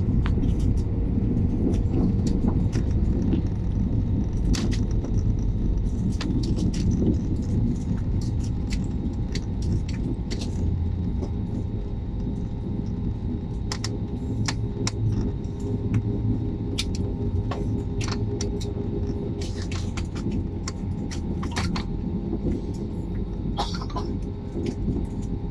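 Cabin noise of an Airbus A320neo rolling out on the runway after touchdown with its ground spoilers up: a steady low rumble with a faint steady hum, easing a little as the aircraft slows, and scattered sharp clicks and rattles throughout.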